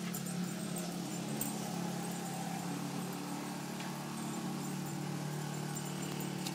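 A steady low hum from a running motor.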